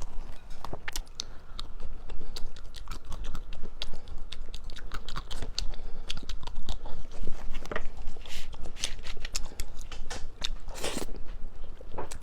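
Close-miked chewing and biting of crisp, crunchy food: a dense, irregular run of sharp crackling crunches, with one longer, louder crunch near the end.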